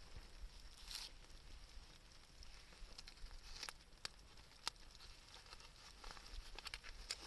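Faint crackling of a wood bonfire: a few scattered, sharp pops and ticks at uneven intervals over a quiet background.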